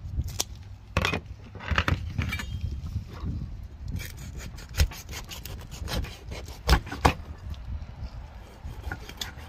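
Cleaver-style knife sawing and chopping through a fish on a wooden cutting board: a rough scraping cut broken by sharp knocks of the blade hitting the board, the loudest a pair about two-thirds of the way through.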